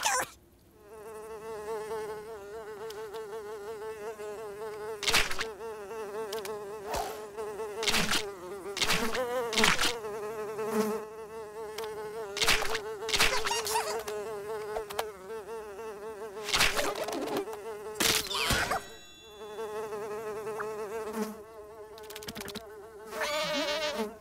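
Cartoon fly buzzing almost continuously, its drone wavering slightly in pitch, cut through by a few short, sharp sound effects.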